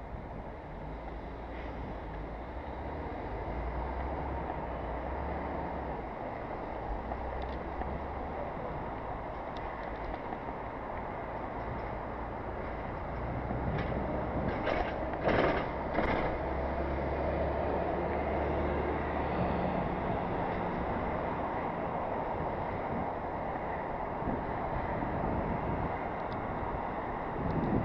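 Street traffic and wind noise heard from a bicycle helmet camera while riding: a steady rumble of passing vehicles, with a short cluster of sharp knocks or rattles about halfway through.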